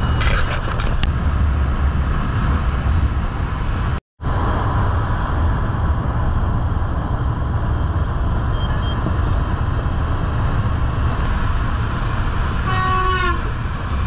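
Royal Enfield Continental GT650's 650 cc parallel-twin running at cruising speed, under heavy wind rush and road noise on the handlebar camera. The sound cuts out for a moment about four seconds in. A short vehicle horn toots near the end.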